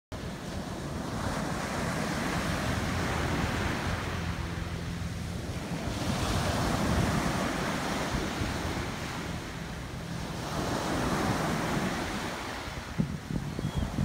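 Ocean waves breaking and washing up a sandy beach, the surf swelling and fading three times, every four to five seconds. Wind buffets the microphone throughout, in sharper gusts near the end.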